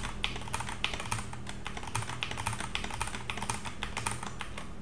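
Computer keyboard keys being pressed in quick, irregular clicks as hash marks are typed at the start of line after line of a text file.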